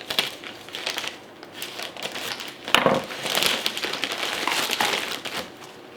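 Plastic packaging crinkling and rustling as it is handled and cut open, with a louder crackle about three seconds in followed by a couple of seconds of steady rustling.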